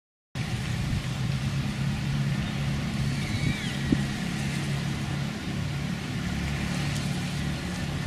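Steady outdoor background noise that starts abruptly about a third of a second in: a low hum under an even hiss. There is a brief chirp about three seconds in and a small click about a second later.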